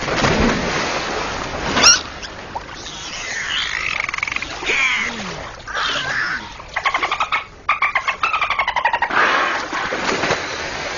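Dolphin vocalising: whistles gliding up and down, mixed with rapid trains of clicks, and a sharp rising squeak about two seconds in that is the loudest moment.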